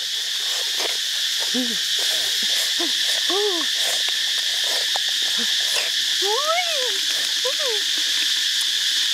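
Short hooting calls that rise and fall in pitch, about seven of them spaced a second or so apart, the longest one near the end, over a steady high-pitched insect drone.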